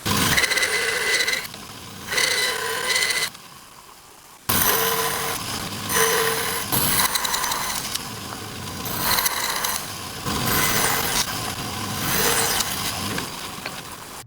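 An electric woodworking power tool running in two short bursts, then more steadily for about ten seconds with its loudness rising and falling as it works the wood.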